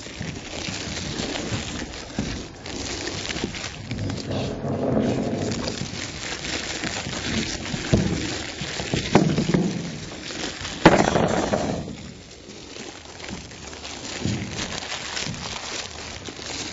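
Tape being peeled in long pulls off the top of foam ICF wall blocks, an uneven ripping and rasping with a sharp snap about eleven seconds in. This is the tape that kept the poured concrete out of the blocks' interlock being stripped away.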